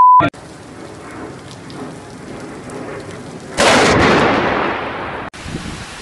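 Steady hiss of rain, then about three and a half seconds in a sudden loud thunderclap from a lightning strike that rumbles away over a second and a half.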